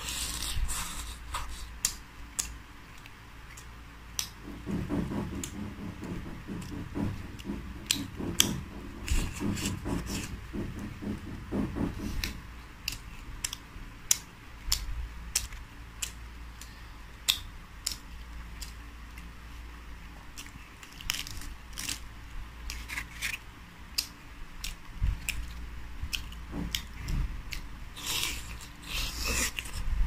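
Close-up chewing and crunching of crispy deep-fried whole small birds, skin and small bones cracking between the teeth in irregular sharp crunches, with the fried birds torn apart by hand.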